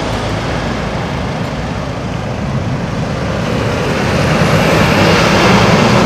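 Articulated lorry's diesel engine running as it pulls round a roundabout and passes close by, with tyre and road noise, growing louder from about three seconds in.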